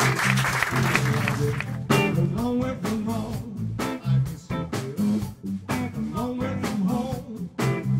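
Audience applause dies away as a hollow-body electric guitar starts a slow blues song. From about two seconds in, the guitar plays chords and single notes in a steady rhythm.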